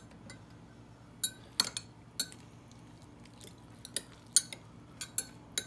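Metal knife clinking and scraping against a glass measuring cup while stirring chopped soft-plastic bait remelt with heat stabilizer: about a dozen sharp, irregular clinks with a short ringing tail. A faint steady hum runs underneath.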